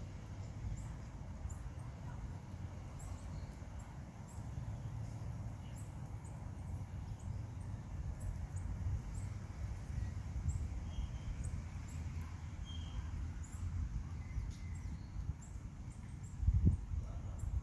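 Outdoor ambience: a low steady rumble with many faint, short, high chirps scattered throughout, and a brief low thump about a second before the end.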